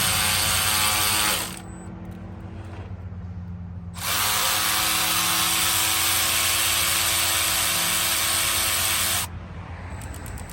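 Milwaukee M12 FUEL Insider cordless ratchet running in two spells, loosening the belt tensioner's adjusting bolt: a first run that stops about a second and a half in, then a longer five-second run from about four seconds in.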